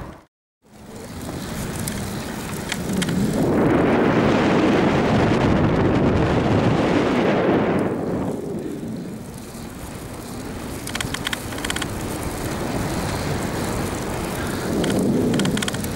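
Wind rushing over the microphone of a bicycle rider's camera, together with tyre noise on asphalt. After a brief gap at the start, the rushing swells loudly for about four seconds, then eases to a steadier level.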